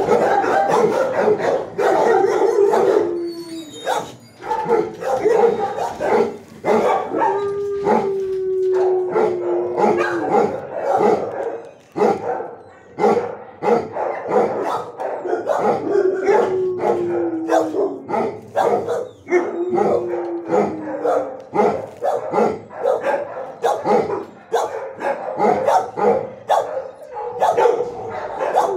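Many shelter dogs barking in their kennels, a continuous overlapping din of barks and yips. Four long howls run through it, each sliding slightly down in pitch.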